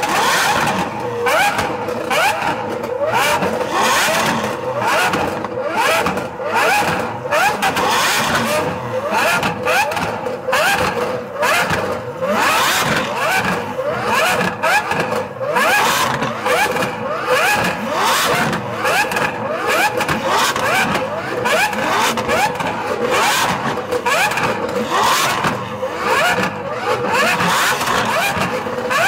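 Lamborghini Aventador V12 revved over and over at a standstill: a rapid string of short rising revs, with sharp cracks among them.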